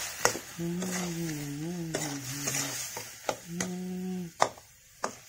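A metal spatula stirring vegetables in an iron wok, with the food sizzling and the spatula clinking sharply against the pan several times. A low wavering hum runs under most of it.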